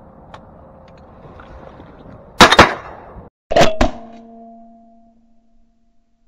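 Shotgun blasts at incoming ducks: two quick pairs of shots about a second apart. After the second pair a ringing tone fades away over a couple of seconds.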